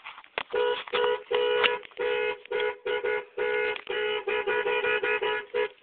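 Car horn sounding two notes together, tapped in a rapid string of short honks of uneven length, about two or three a second.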